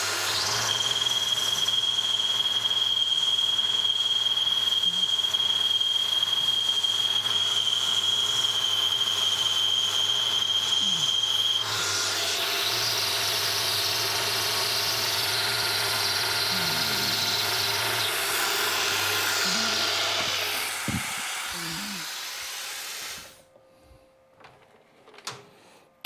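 An electric power tool running loud and steady with a high whine, louder than expected, then winding down and stopping near the end.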